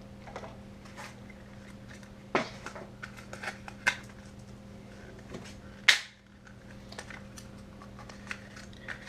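Scattered clicks and knocks of small hard objects being handled, the loudest about two and a half, four and six seconds in, over a steady low hum.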